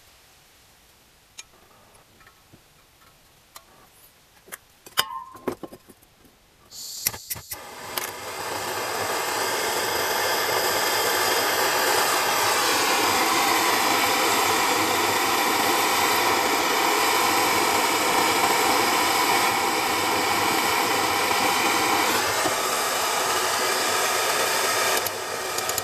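A few small clicks and taps, then about seven seconds in a motor-driven machine starts and runs loud and steady with a strong hiss; its pitch rises slightly a few seconds later, and it cuts off near the end.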